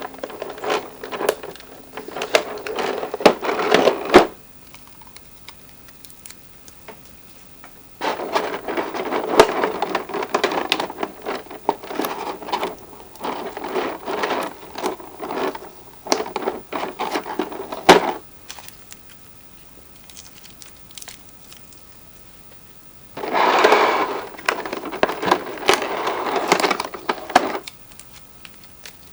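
Packaging of a boxed toy figure being handled: rustling and crinkling with many small clicks and taps, in three spells separated by quiet pauses.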